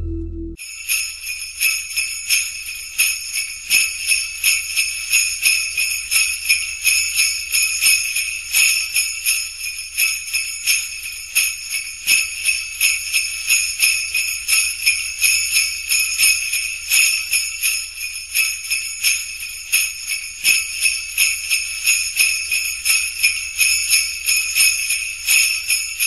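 Sleigh bells jingling, shaken in a steady rhythm, starting about half a second in.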